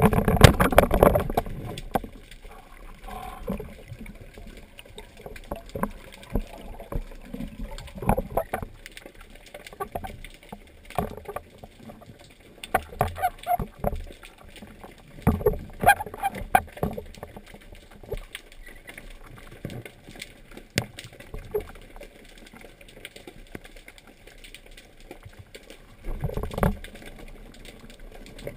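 Muffled underwater sound picked up through a waterproof camera housing: water swishing past with irregular knocks and gurgling bursts, the loudest right at the start and another about 26 seconds in.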